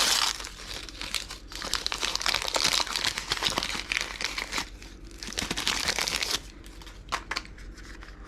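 Plastic packaging crinkling and rustling as it is opened and unwrapped by hand. It stops about six seconds in and gives way to a few light clicks.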